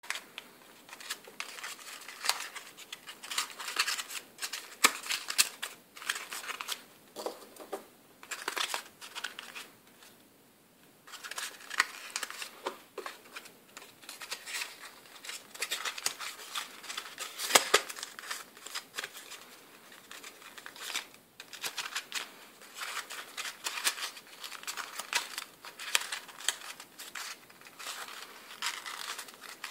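Red origami paper crinkling and crackling in the hands as it is folded and pressed into a rose shape. The crackles are irregular, with a short lull about ten seconds in.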